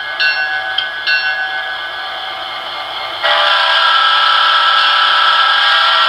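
Sound decoder of a model SD40-2 diesel locomotive playing through its small onboard speaker: the bell rings about twice a second and stops about a second in, leaving the prime mover running steadily. About three seconds in, the multi-chime air horn sounds one long blast.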